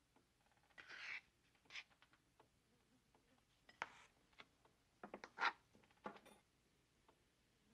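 Near silence broken by a handful of soft, irregular scrapes and clicks of a spoon working a mound of mashed potatoes on a plate at a dinner table. The loudest comes about five and a half seconds in.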